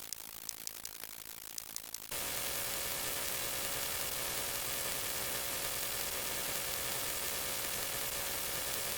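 Sound-effect audio: a run of sharp, irregular ratchet-like clicks, then about two seconds in it switches abruptly to a steady static hiss with a faint hum.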